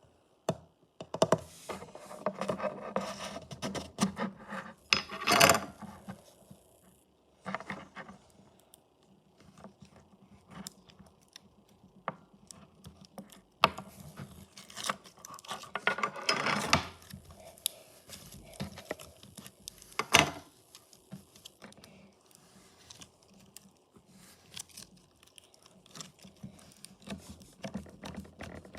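Slime being worked by hand: irregular clicks, crackles and squishing, louder in stretches, with a sharp pop about two-thirds of the way in.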